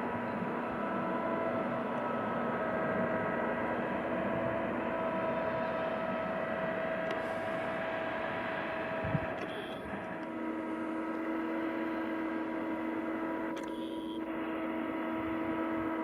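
Large diesel harvest machinery running steadily: a continuous engine drone with several steady whining tones. One whine drops to a lower pitch about ten seconds in, and a single low knock comes just before.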